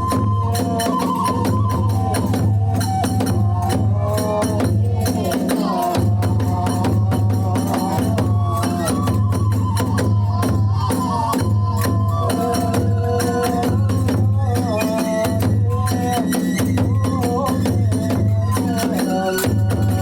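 Kagura hayashi music: a bamboo flute plays a wavering melody over a steady, rapid clatter of small hand cymbals and a low, booming taiko drum.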